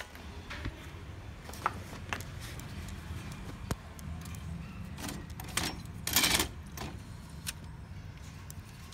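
Scattered light clicks and knocks of plastic and metal laser-printer parts being handled, with a louder scrape lasting about half a second around six seconds in, over a low steady hum.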